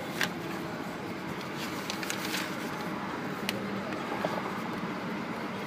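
Steady car cabin noise with a low hum, broken by a few faint sharp clicks.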